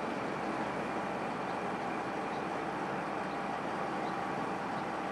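Heavy diesel engine running steadily at a constant speed, as from a mobile crane holding a suspended load.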